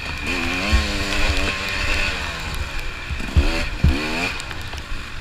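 Dirt bike engine revving up and falling back over and over as the rider works the throttle, with a few sharp low thumps mixed in.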